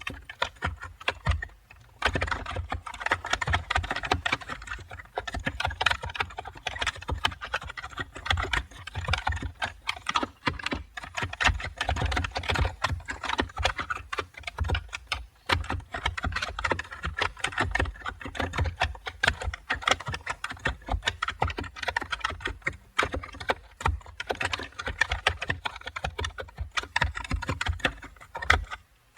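Continuous typing on a computer keyboard: a fast, steady stream of key clicks, with a short pause about a second in and another near the end.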